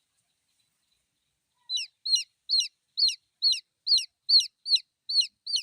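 A baby chicken chick peeping: after a silent pause of about a second and a half, a steady run of short, high chirps, about two and a half a second, each falling in pitch. It is a chick's call for its mother hen.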